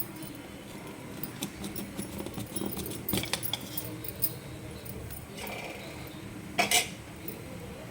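Scattered light metallic clinks and jingles over a steady low hiss, with a louder clink about six and a half seconds in.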